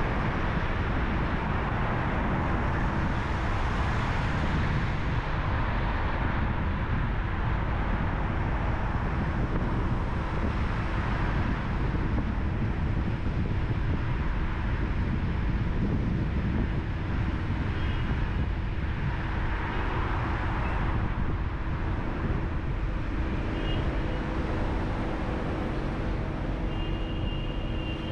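Car driving in city traffic: steady road and engine noise with a low hum, and a few faint short high-pitched tones in the last ten seconds.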